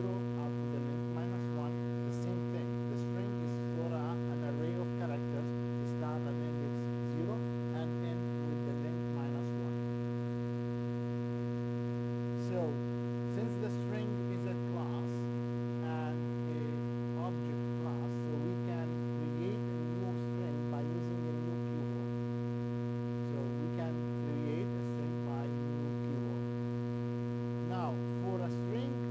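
Steady electrical mains hum with a ladder of buzzy overtones, unchanging throughout, with faint brief chirps scattered over it.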